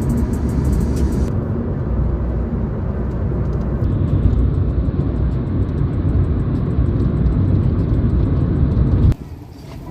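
Steady road noise inside a moving car: a loud, dense low rumble of tyres and engine that cuts off suddenly near the end.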